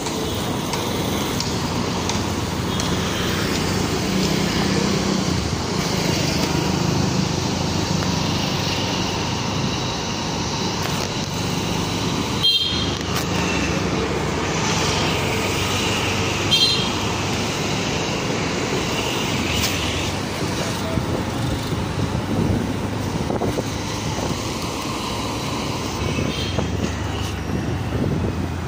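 Motorcycle riding through city traffic, heard from the bike: engine running with steady road and traffic noise. Two short horn toots come near the middle.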